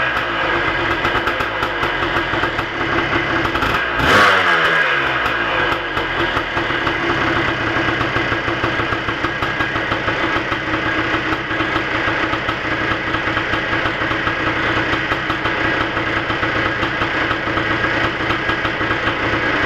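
Freshly rebuilt 1987 Kawasaki KDX200's single-cylinder two-stroke engine running. About four seconds in it is blipped once, and the revs fall back quickly to a steady idle.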